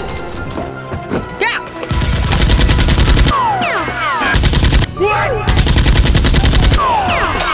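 Rapid automatic gunfire in three bursts: a long one about two seconds in, a short one past the middle and another long one near the end.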